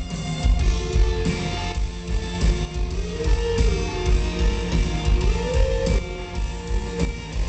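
Live rock band playing loud, heard from within the crowd: pounding drums under electric guitar, with a held note that slides up into a sustained pitch twice, a little after the second and again after the fifth second.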